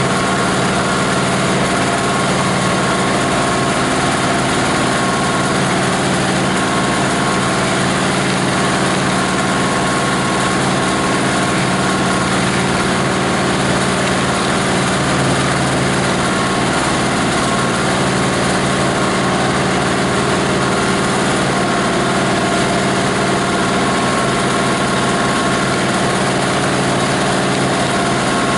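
An 18 HP diesel engine driving a multi-blade plastic grinder, running steadily at a constant speed.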